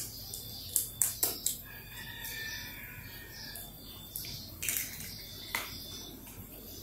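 A metal spoon tapping on a raw eggshell to crack it. There are three quick taps about a second in and a few more between about four and five and a half seconds, with a faint high thin tone in between.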